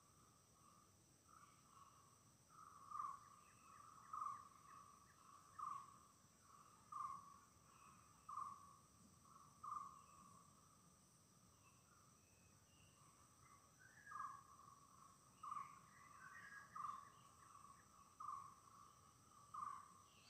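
Faint forest ambience of insects and birds. Over steady high insect drones, a call repeats about once every second and a half, pausing for a few seconds midway, with scattered faint bird chirps.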